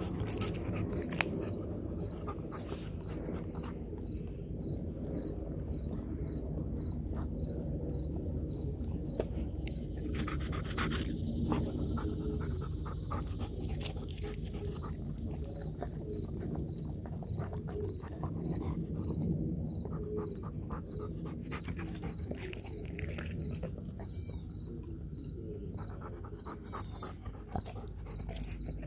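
Belgian Malinois chewing a raw whole chicken, with wet smacking and crunching of bone in many quick sharp cracks, while it pants hard after exercise.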